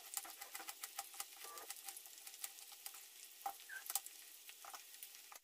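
Faint, steady crackle of jackfruit pieces frying in oil on a slow flame, with a few light knife strokes on a wooden chopping board as an onion is sliced.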